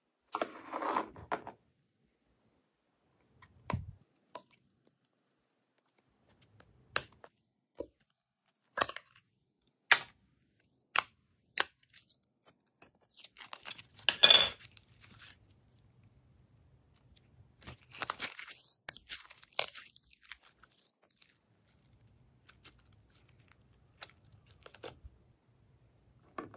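Irregular crunching, crackling and tearing sounds of slime-mixing materials being handled: scattered sharp clicks, with a few longer crinkly bursts near the start, around the middle and about two thirds of the way in.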